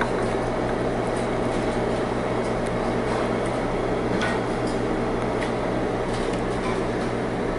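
Steady mechanical hum of room air-handling equipment, a constant drone with a low tone under it, with a few faint clicks.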